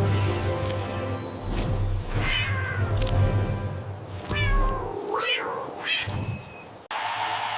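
A cat meowing a few times, with calls that rise and fall in pitch, over background music.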